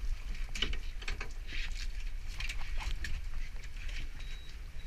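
Steady low wind-and-sea rumble on an open boat, with scattered light clicks and taps and short hissy bursts over it.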